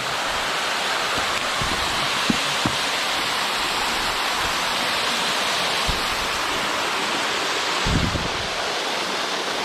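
Waterfall pouring a significant amount of water, a steady, even rush, with a few brief low knocks.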